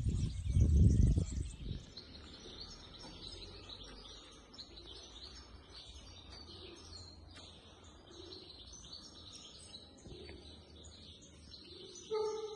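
Wind buffeting the microphone for about the first two seconds. Then a quiet street with many small birds chirping and pigeons cooing a few times. A short, louder sound with a steady pitch comes near the end.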